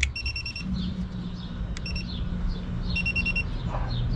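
Electronic beeper sounding in quick runs: about five short high beeps just after the start, a single beep near the middle, then another run of about five beeps, with a couple of sharp clicks among them.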